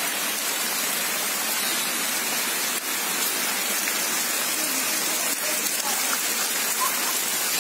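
Steady rain falling on wet ground and puddles, an even hiss without a break.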